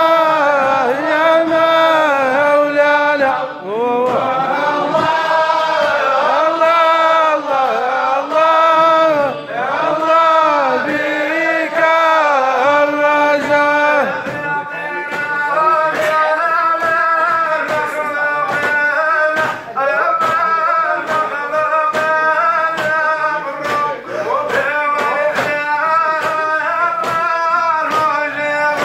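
Men singing a Moroccan Sufi devotional chant, a melodic phrase that rises and falls about once a second. A steady percussive beat comes in about halfway through.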